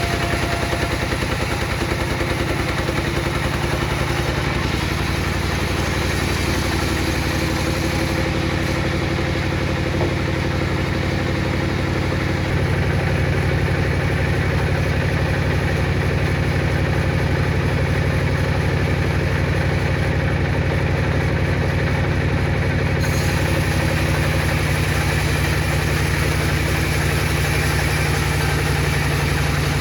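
Heavy machine running steadily with a low, even pulsing drone. It steps slightly louder about twelve seconds in.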